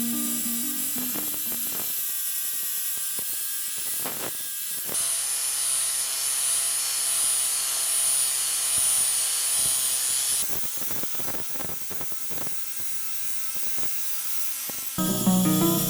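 A small power tool runs with a steady high whine for about five seconds in the middle, with scattered clicks and knocks before and after.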